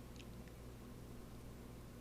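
Faint steady low hum and hiss of a large store's background, with one brief faint high squeak about a quarter second in.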